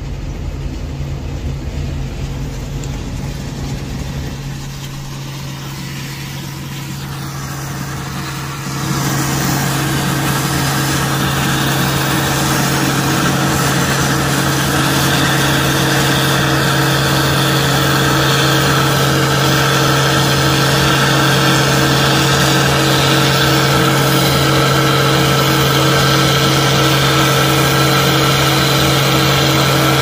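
Case International combine harvester running while cutting peas: a steady engine and machinery drone with several held hum tones. At first it is muffled, heard from inside a pickup cab; about nine seconds in it becomes louder and fuller, heard up close in the open.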